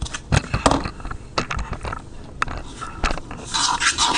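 Metal fork stirring thick cake batter in a small plastic bowl: irregular clicks and scrapes as the fork knocks and drags against the bowl's sides.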